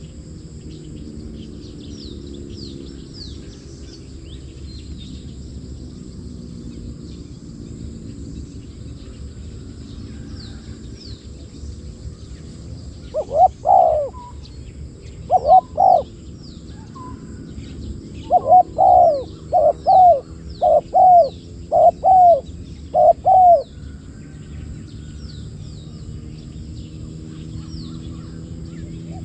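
Spotted dove cooing close by: a run of short coo phrases starting about halfway through, most of them coming in quick succession. Faint high chirps of small birds throughout.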